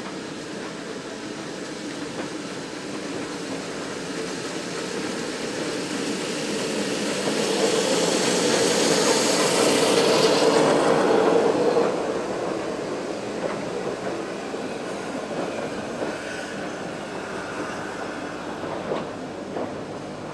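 Mount Lyell No. 5 steam locomotive climbing past with its train. It grows to its loudest, with a rush of steam, as it passes below about 8 to 12 seconds in, then fades as the carriages roll by with a few wheel clicks near the end.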